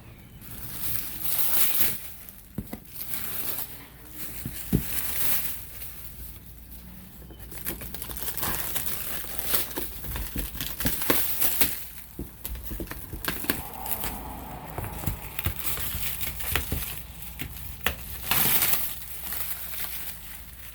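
Plastic stretch wrap being pulled and torn off a shipping box, in irregular bursts of crinkling and tearing with sharp crackles.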